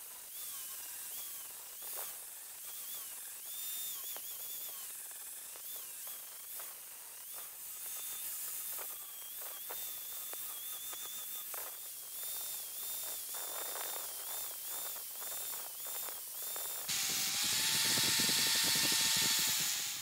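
Electric angle grinder with a thick abrasive disc grinding a 10 mm aluminium plate into a bracket shape, its motor whine dipping and recovering as the disc bites. About three seconds before the end it gives way suddenly to a louder, steadier power-tool run, a second angle grinder.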